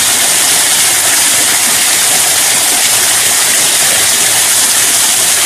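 Small waterfall spilling off a rock ledge onto wet stone: a steady, hissing rush of falling water.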